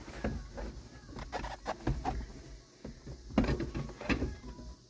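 Irregular knocks, clicks and short scrapes of hands handling a pickup truck door's plastic interior trim.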